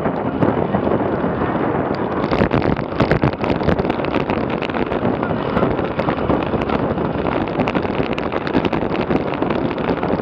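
Wind rushing over the microphone of a bike-mounted action camera at about 40 km/h, a steady roar with frequent crackling buffets from about two seconds in.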